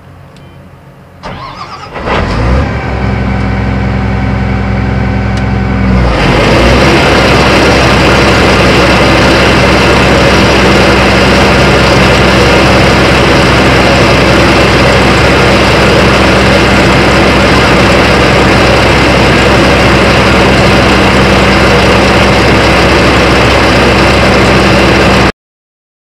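Combine harvester's engine starting about two seconds in and idling briefly. About six seconds in it runs up to a loud, steady machine noise as the drives turn, a test run after a roller-chain repair. The sound cuts off suddenly near the end.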